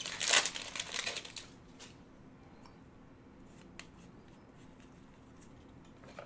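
Trading cards being handled and slid against one another: a few quick rustling strokes in the first second and a half, then only faint scattered clicks.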